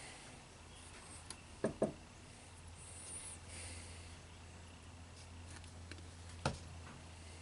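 Light clicks and taps from small TBI parts being handled and fitted by hand: two close together about a second and a half in and one more near the end, over a low steady hum.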